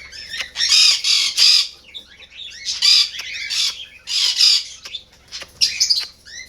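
Conure giving a series of loud, harsh squawks, about four in a row, with a few short clicks in between.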